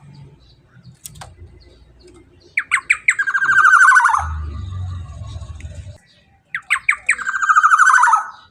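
Black-naped oriole (kepodang) calling loudly: two phrases, each opening with a few quick sharp notes that run into a long buzzy, rasping note that falls away at the end. A low hum sits between the two phrases.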